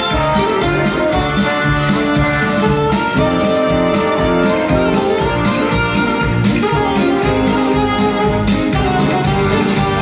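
Latin ballroom dance competition music with a steady beat, played loud.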